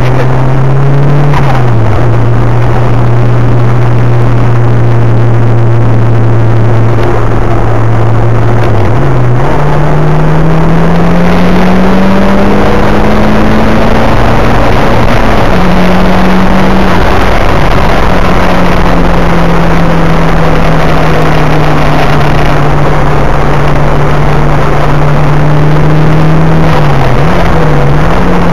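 Nissan Silvia S13's engine heard loud from inside the cabin while driving a track lap: the note holds steady, dips briefly about nine seconds in at a gear change, climbs for several seconds, drops, then holds a higher steady note, with another brief dip near the end.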